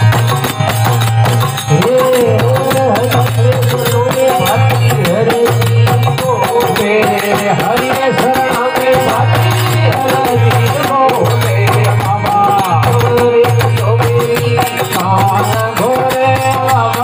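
Rajasthani devotional aarti: men singing a melodic line over a steady drum beat, with the continuous clicking of hand-held kartal clappers.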